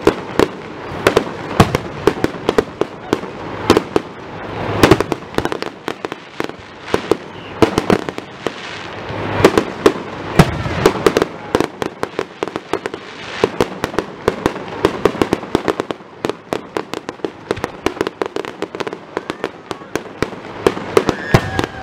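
Aerial fireworks display: a rapid, continuous string of shell bursts and crackling bangs, several a second, with louder clusters of bangs every few seconds.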